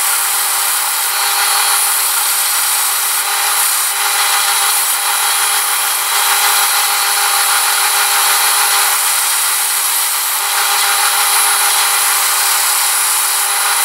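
Belt grinder running with a steel bar held against the moving belt, a steady grinding hiss over the constant hum of the motor.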